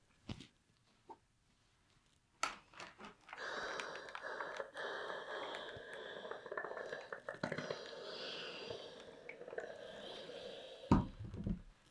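Handheld steam iron hissing steadily for about seven seconds as it puts out steam while pressing a fabric seam. A loud thump comes near the end, with a couple of soft knocks before the hiss starts.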